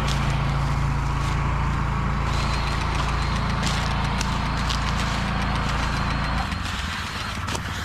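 Diesel engine of harvest machinery running steadily; about six and a half seconds in its note drops and it gets quieter.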